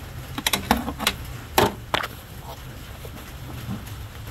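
A flat screwdriver prying at a rubber coolant hose on a thermostat housing: a run of sharp metal clicks and knocks in the first two seconds, the loudest about one and a half seconds in, then quieter handling of the hose. A low steady hum runs underneath.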